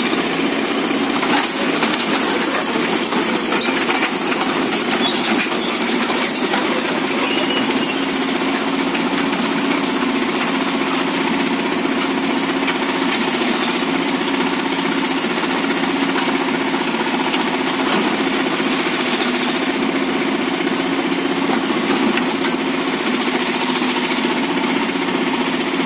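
Tata Hitachi mini excavator's diesel engine running steadily under working load as the machine climbs onto and settles on a truck bed. There are a few short metallic knocks in the first several seconds.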